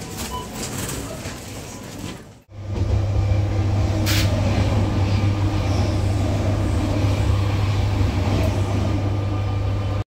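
Faint supermarket checkout noise, then, after a cut about two and a half seconds in, the steady low rumble of a suburban commuter train heard from inside the carriage. A brief hiss comes about four seconds in.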